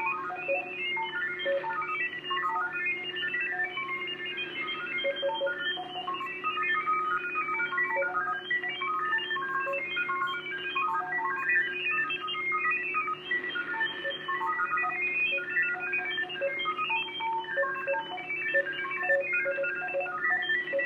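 Unidentified digital data transmission received on the HF shortwave band: a rapid, jumbled stream of short beeps hopping among many different pitches, several sounding at once. A steady low tone hums underneath.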